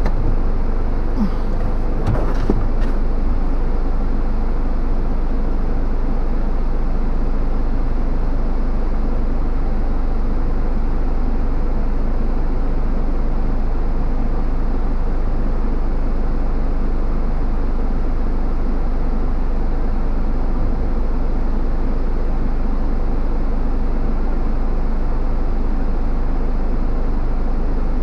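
Four-wheel drive's engine idling steadily, heard from inside the cab, kept running while it winches a stalled vehicle up a sand hill.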